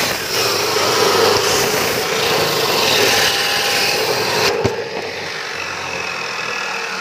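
Abrasive cut-off saw (chop saw) grinding through the metal of a homemade firearm clamped in its vise, a loud, harsh, steady grinding with a running motor tone underneath. About four and a half seconds in, a sharp click comes and the saw runs on more quietly with the cut finished and the blade lifted.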